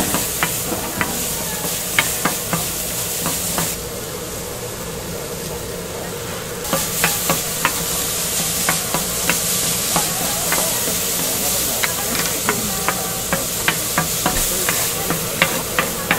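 Bean sprouts, onion and garlic sizzling on a hot flat-top griddle while two wooden spatulas stir and toss them, with frequent sharp clacks of the spatulas striking the plate. The sizzle drops away for a few seconds about four seconds in, then picks back up.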